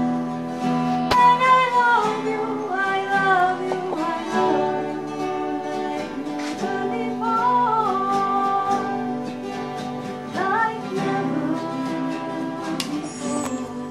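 A song sung over acoustic guitar accompaniment, the voice holding and sliding between long notes.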